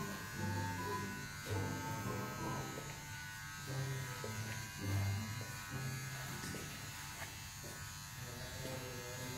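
Straight razor scraping through lathered beard stubble, over a steady electric buzz and low murmured voices.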